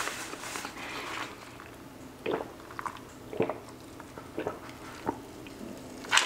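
Close-miked mouth sounds of drinking from a glass mug of iced drink, with a few separate short clicks and swallows, quietly.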